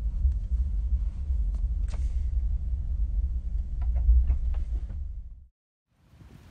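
Car driving, heard from inside the cabin: a steady low road rumble with a few small clicks, cutting off abruptly about five and a half seconds in.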